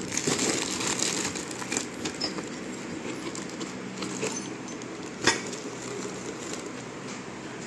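Handling of a cardboard box and its paper inserts: light rustling and small scattered clicks, with one sharp tap about five seconds in, over a faint steady hum.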